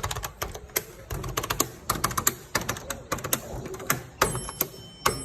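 Push buttons on an elevator button panel being pressed over and over, a quick irregular run of sharp clicks. Near the end a short electronic beep sounds.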